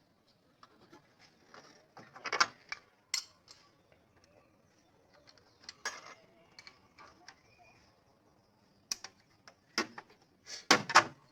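Metal hand tools clicking and clinking against an engine's valve gear in scattered sharp knocks, a cluster of the loudest near the end, as the rocker-arm valve clearances are being set with the engine off.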